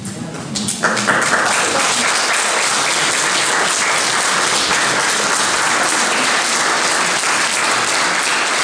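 An audience applauding, the clapping breaking out about a second in and then holding steady.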